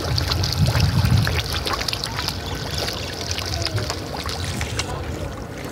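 A crowded shoal of carp and koi splashing and gulping at the water's surface, a dense run of many small splashes and wet smacks. A low rumble sits under it in the first second or so.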